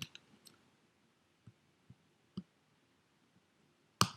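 Scattered small clicks and taps from handling the tiny screws and parts of an opened iPhone 8 with small repair tools: a few at the start, three spaced out around the middle, and the loudest one near the end.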